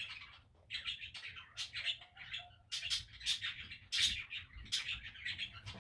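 Coins being pushed into a bowl of uncooked rice: the grains rustle and crunch in quick, irregular bursts.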